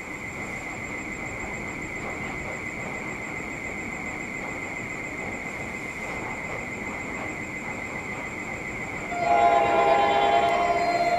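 Chime air horn (a K5LA) of an approaching NJ Transit electric locomotive sounding one long blast about nine seconds in, several notes held together as a chord. Before the horn there is only a steady high whine over faint background.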